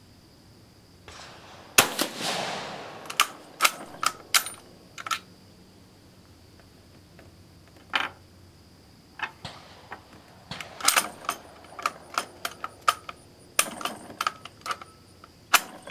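One shot from a Vetterli 1870/87/15 rifle converted to 6.5 mm Carcano, firing a reduced cast-bullet load, about two seconds in, with its report dying away. It is followed by runs of metallic clicks and clacks as the stiff, rough bolt action is worked to extract the case and chamber the next round, ending in a sharp clack near the end.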